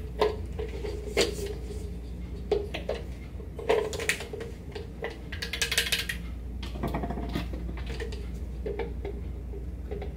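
Plastic foam-pump hair mousse bottles being handled and opened: scattered light clicks and knocks of the pump head and bottles, a short hissy rush about six seconds in, then mousse poured from one bottle into the other.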